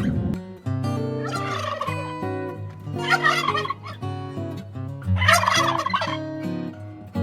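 A bird calling three times, each a rapid rippling call about a second long, roughly two seconds apart, over background music.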